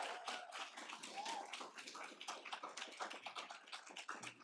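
Audience applauding, the clapping thinning out to scattered claps and fading away.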